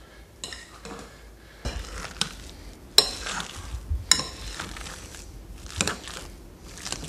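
Metal potato masher pressing and working through boiled potatoes in a glass mixing bowl: soft squishing strokes, with two sharp clinks of metal against glass near the middle.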